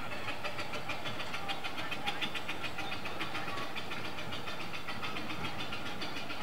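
A 12¼-inch gauge Exmoor-built steam locomotive running with a train of passenger coaches, making a fast, even, ticking beat.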